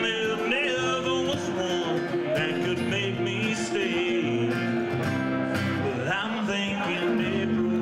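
A man singing a country-style song to his own acoustic guitar.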